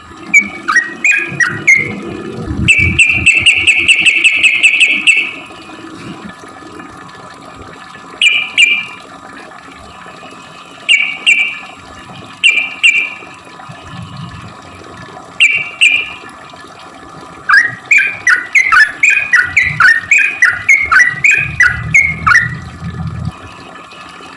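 Yellow-vented bulbul (trucukan) singing and calling: short bubbly phrases, a long buzzy trill, then a fast run of quick chattering notes near the end. There are low rumbles underneath in places.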